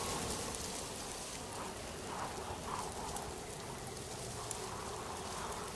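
A steady rain-like rushing hiss with a few faint short tones in the middle.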